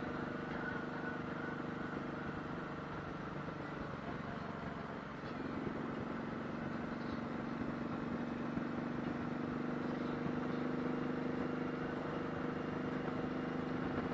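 Motorcycle riding at steady speed: the engine running steadily under road and wind noise. A steadier engine tone comes in about five seconds in.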